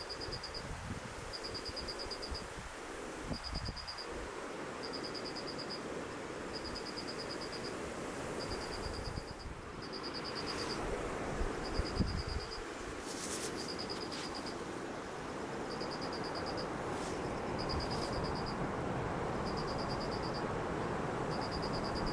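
Wind blowing on the microphone: gusty low rumble over a steady hiss. Over it, a high insect trill repeats every second or two.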